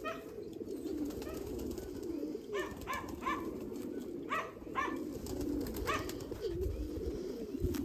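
A loft full of racing pigeons cooing together in a continuous low warble. Short, higher calls break in several times in small groups of two or three.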